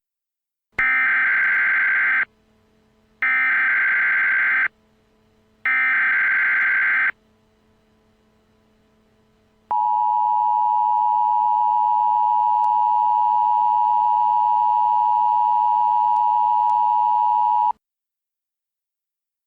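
Emergency Alert System tones: three short bursts of warbling data tones (the SAME header), each about a second and a half long. After a pause comes the steady two-tone EAS attention signal, held for about eight seconds before it cuts off.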